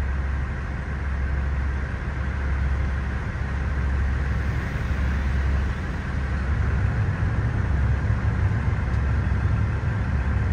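Steady low engine rumble of heavy machinery idling or running, with a broad hum of the industrial surroundings above it; the low end grows a little stronger about six seconds in.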